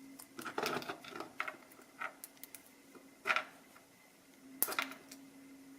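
Small clicks and metallic taps of a padlock and tools being handled, with two louder clicks at about three and four and a half seconds in, over a faint steady hum.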